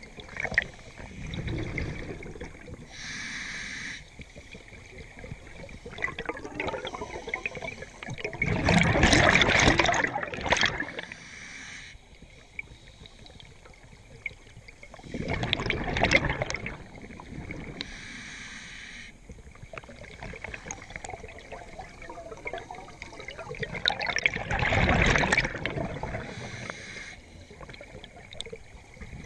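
Scuba diver breathing through a regulator underwater: a short hiss on each inhale, then a loud rush and gurgle of exhaled bubbles, three breaths several seconds apart.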